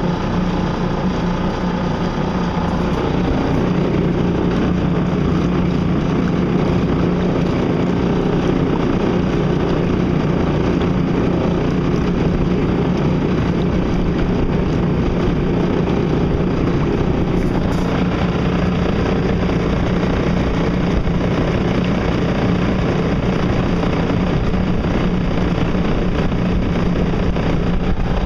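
Electric drive motor of a solar-powered boat running steadily with a constant hum, turning a new propeller, over water rushing along the hull as the boat moves under way.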